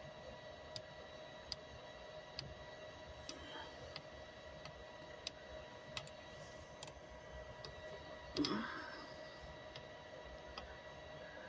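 Faint, regular ticking, about one tick every three-quarters of a second, over a steady faint electrical hum. About eight and a half seconds in there is one short, louder sound with a rising pitch.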